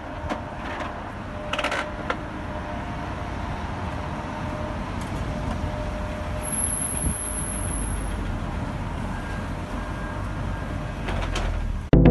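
Steel roller shutter running down under its own drive, a steady mechanical running sound with a few louder rattles about a second and a half in, now running freely after being unjammed. Music cuts in at the very end.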